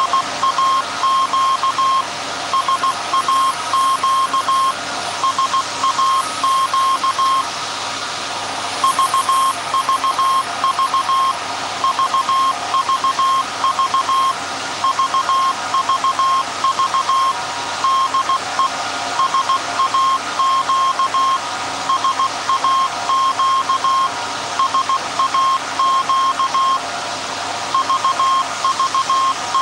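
Morse code keyed as a beeping tone of about 1 kHz, short and long beeps in groups with brief gaps, the SAQ message being sent. Underneath it runs the steady whir of the 1924 Alexanderson alternator.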